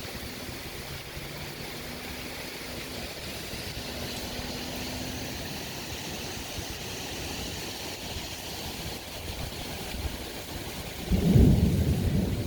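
Windstorm: a steady rush of wind, with a loud low rumble setting in near the end.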